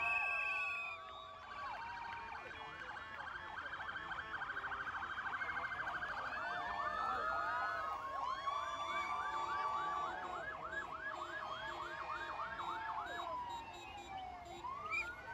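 Several ambulance sirens sounding at once, overlapping: a very fast yelp in the first few seconds, then a warble of about three cycles a second, with a slow rising wail starting near the end.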